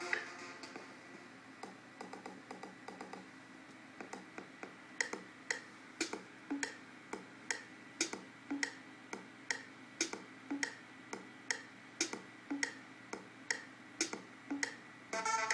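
Sparse electronic music played back from Ableton Live clips: a stripped-down section with a ticking beat about two clicks a second, each click with a short pitched blip. It is softer and more scattered for the first few seconds.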